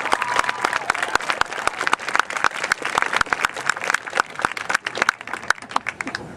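A crowd applauding, with many hands clapping in a dense, irregular patter.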